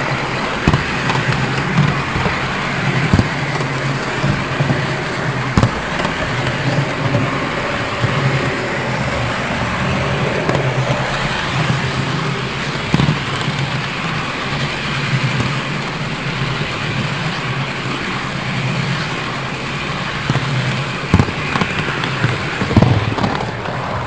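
Model trains running on a layout: a steady rolling rumble with a wavering hum and a few sharp clicks here and there.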